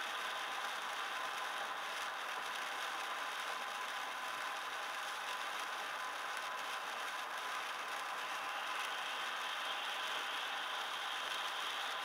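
Steady road and tyre noise inside a moving car on a wet highway, picked up by a dashcam microphone, with a faint steady whine.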